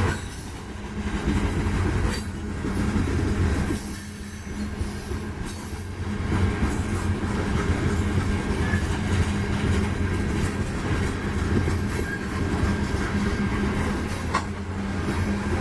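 Union Pacific freight train rolling past, a steady low rumble and drone from the cars on the rails, with a few sharp knocks as wheels pass over rail joints.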